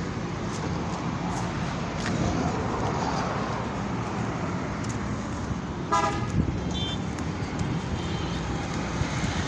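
Steady road traffic noise with one short vehicle horn toot about six seconds in.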